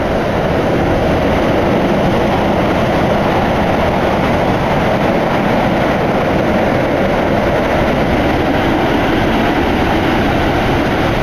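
Keikyu Airport Line train running at speed, heard from inside the passenger car: a loud, steady rumble of wheels on rail and running gear, with the tunnel walls close outside the windows.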